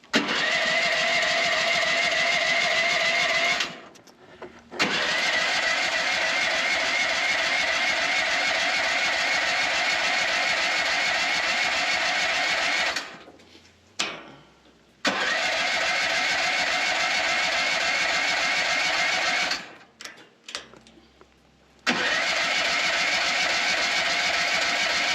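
Mini excavator's engine being cranked by the starter in four long attempts, each stopping abruptly without the engine catching. It is hard to start, which the owner expects to need ether for every time.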